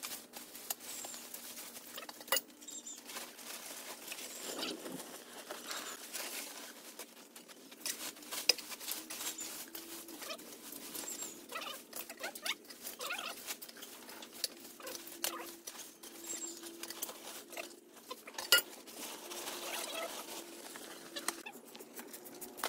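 Irregular light rustling and scratching with scattered small clicks, and a sharper knock twice, over a faint steady hum.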